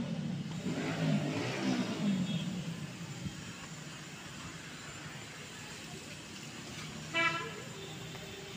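A motor vehicle passing by, rising and then fading over the first three seconds, then one short horn toot about seven seconds in.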